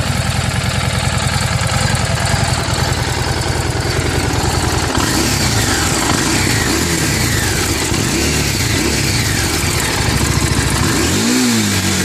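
Harley-Davidson Street 750's V-twin engine through its stock exhaust. It idles steadily, then from about five seconds in it is revved in a series of throttle blips, the sharpest rev near the end.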